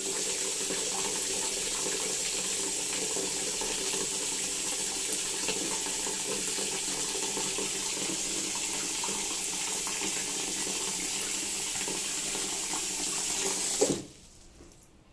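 Water running from a tap into a ceramic washbasin, a steady stream splashing on the bowl. Near the end the tap is turned off with a knock, and the water stops.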